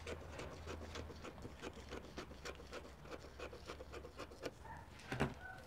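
Scissors cutting through brown pattern paper: a run of quick, faint snips with light paper rustle, and one louder click near the end.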